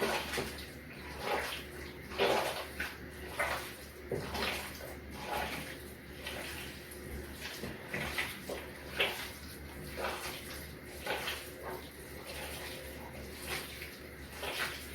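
Hands kneading and squeezing a raw meatloaf mixture of meat, egg and Grape-Nuts cereal, giving irregular wet squelches every half second or so.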